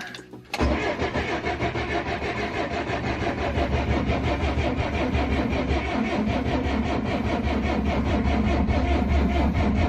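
John Deere mini excavator's diesel engine cranking on its starter without catching. The steady, even rhythm starts suddenly about half a second in. The owner blames the batteries, which turn out not to be good.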